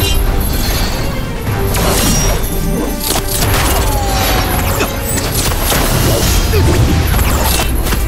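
Dramatic soundtrack music under fight sound effects: whooshing magical energy blasts and several crashing impacts, one of the sharpest near the end.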